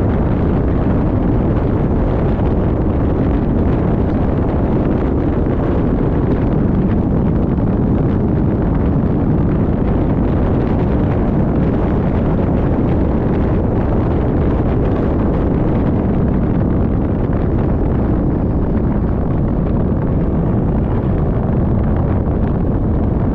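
Steady loud rushing noise of a moving vehicle, with wind buffeting the microphone.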